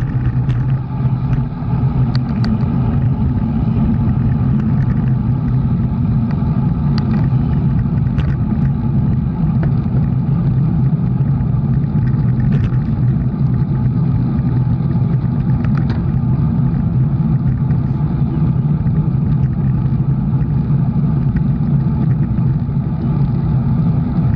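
A motor vehicle's engine running steadily at constant speed, a loud even hum, with a few faint clicks scattered through it.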